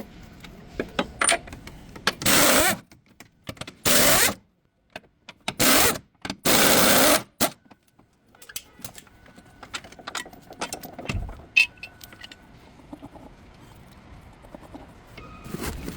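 Four short, loud bursts of a power tool running, with many small metallic clicks and clinks of tools and parts around them.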